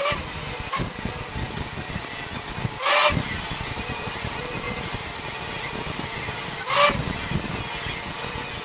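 TIG welding arc running with a steady hiss and a thin high whine, broken off briefly twice and restarting each time.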